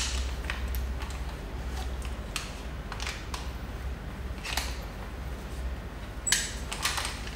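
Metal rope-access hardware (descender, ascenders and carabiners) being handled during a changeover from ascent to descent: scattered sharp clicks and clinks, about eight spread across a few seconds, over a low steady hum.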